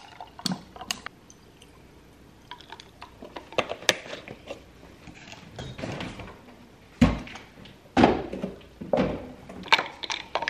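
Iced coffee being made in a tall glass jar: liquid pouring into the jar, light clinks, and a few thunks on the countertop, the loudest about seven and eight seconds in.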